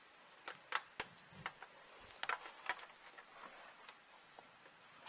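Light, irregular clicks and ticks of computer cables and their connectors being handled and fitted inside a desktop PC case, about seven in all, spread over the first four seconds.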